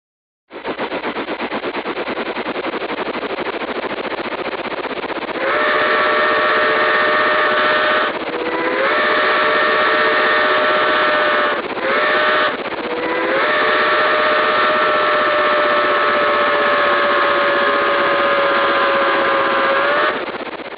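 Steam locomotive running with rapid, regular exhaust chuffs. From about five seconds in, a multi-note chime steam whistle sounds over it in a few blasts with short breaks, ending in a long blast that sags slightly in pitch as it stops.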